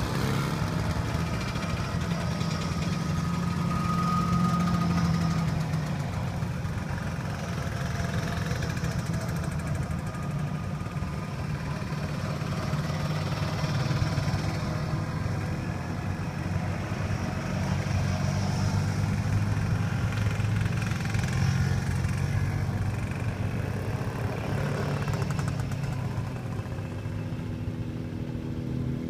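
Messerschmitt bubble cars driving past one after another, their small two-stroke engines buzzing. The sound swells and fades several times as each car goes by.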